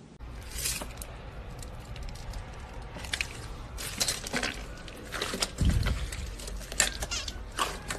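Slime being squeezed and worked by hand, giving irregular sticky clicks and crackles, with a dull low thump about five and a half seconds in.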